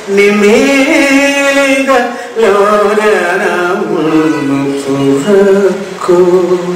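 A man's solo voice singing a Malayalam poem unaccompanied, chant-like, in long held notes that slide between pitches, with a short breath about two seconds in.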